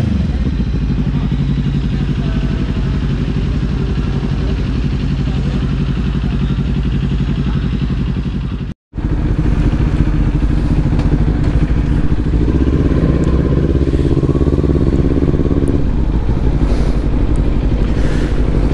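Kawasaki Ninja 400 parallel-twin engine with an aftermarket slip-on exhaust, idling steadily on fresh oil. The sound cuts out for a moment about nine seconds in, then the engine runs again, heard from the rider's seat, its note shifting and fuller in the second half.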